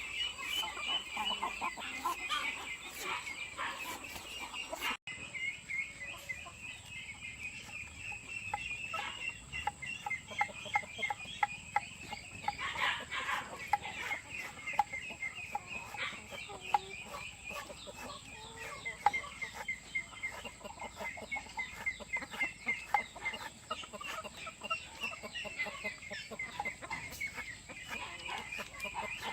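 A flock of laying hens clucking and calling, many overlapping short calls with no break.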